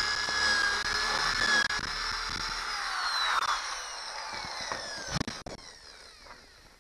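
Cordless drill running under load: a steady motor whine whose pitch falls from about two seconds in, then stops about five seconds in.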